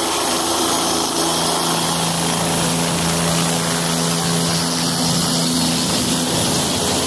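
Helicopter hovering a few feet above a landing pad: its rotor and turbine engine run steadily, an even whooshing noise with a steady low hum beneath it.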